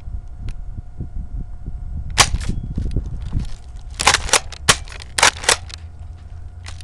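Airsoft guns firing: a sharp crack about two seconds in, then a quick volley of about six cracks over the next second and a half, and one more near the end.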